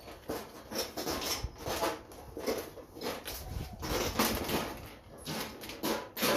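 Irregular clattering and scraping from a fluorescent light fixture being taken apart by hand, as a series of uneven knocks and rattles.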